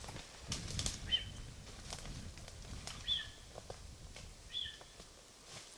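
Footsteps crunching through dry leaves and light snow, loudest in the first second. A short two-note chirp, a high note dropping to a lower one, sounds three times about every one and a half to two seconds.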